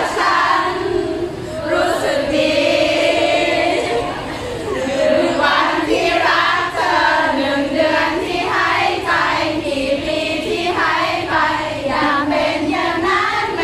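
A crowd of fans singing together in unison, many voices at once, steady throughout.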